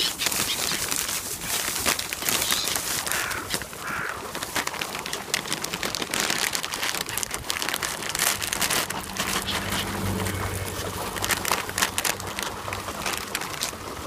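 A flock of gulls flapping and calling over a crowd of carp thrashing at the surface for thrown shrimp crackers, while a plastic snack bag crinkles. The sound is a dense crackle of splashes, wingbeats and rustling, with a couple of short gull calls about three to four seconds in.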